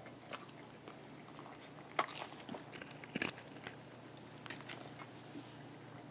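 A dog biting and chewing food: scattered sharp crunches and mouth clicks, the loudest about two and three seconds in.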